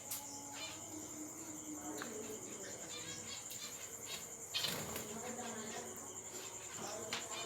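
Aviary ambience: caged small birds (budgerigars, lovebirds, finches) chirping and twittering over a steady high-pitched chirring, with one louder sharp chirp or click about four and a half seconds in.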